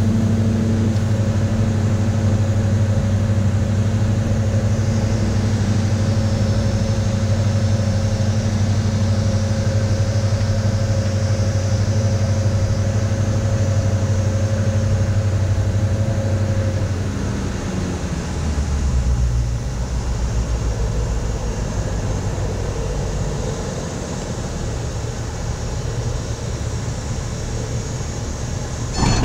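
A Diamond DA40 NG's turbo-diesel engine and propeller drone steadily in the cockpit on final approach. About two-thirds of the way through the engine note drops and changes as power comes back for the landing.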